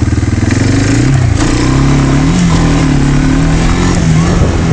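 Quad's engine running, its pitch climbing about a second in as the throttle opens, then rising and falling as it is driven.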